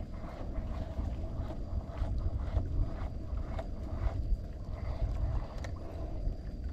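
Wind buffeting the microphone with a low, uneven rumble, with scattered light ticks.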